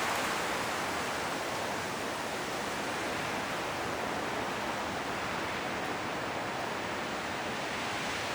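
Steady wind blowing through forest trees, rustling the autumn leaves, with a gust easing off at the start.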